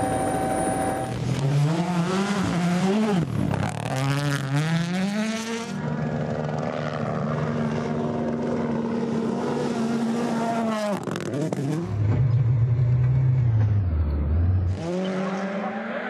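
Turbocharged rally car engines at high revs across several quick cuts. For the first few seconds the pitch climbs and drops with rapid gear changes, then holds steady under full throttle. Near the end a lower engine note takes over, then another rises just before the end.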